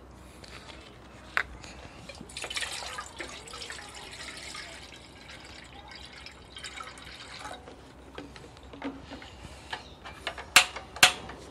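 Water poured from a jug into a cooking pot, a splashing pour lasting about five seconds. Near the end come two sharp clicks, the loudest sounds here, as the portable gas stove is lit.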